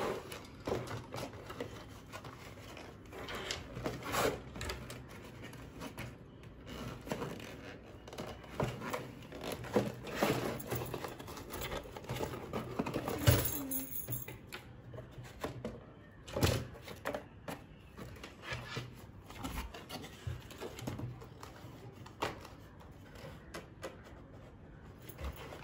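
Irregular clicks, knocks and rustling of packaging and plastic parts being handled as a toy remote-control car is unpacked from its box.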